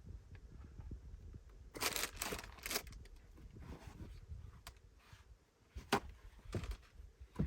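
Handling noises: a couple of short tearing or crinkling rustles, as of packaging, about two seconds in, then a few scattered sharp clicks and knocks.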